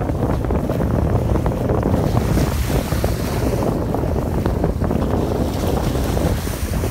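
Wind buffeting the microphone over the rush of water along the hull and bow wave of a boat under way.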